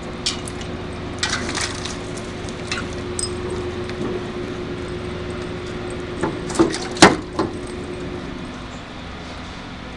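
Scattered sharp clicks and knocks, the loudest a crack about seven seconds in, over a steady hum with a held tone that fades out near the end.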